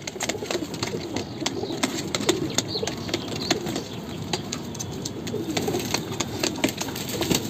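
Domestic pigeons cooing, with many short light clicks throughout.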